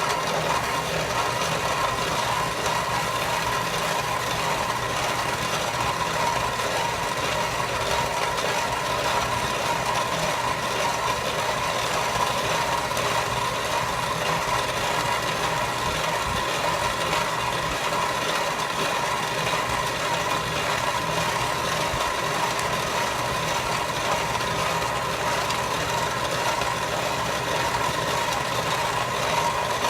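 Homemade feed grinder, driven by an electric motor through a belted jack shaft with step-down sheaves, running steadily while grinding shelled field corn into feed.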